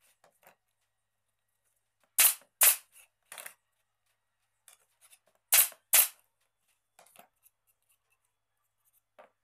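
Sharp knocks or snaps in two close pairs, the second pair about three seconds after the first, with a few fainter taps in between and near the end.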